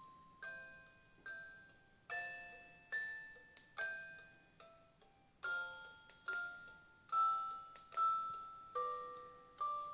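A music-box style lullaby from the Tommee Tippee Ollie the Owl sleep aid's speaker: a slow melody of single chime notes, a little more than one a second, each ringing and fading before the next.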